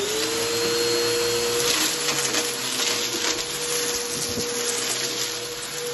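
Bagless upright vacuum running with a steady motor whine that settles to pitch just after switch-on. It crackles as it is pushed over a shag rug and sucks up scattered grit and debris.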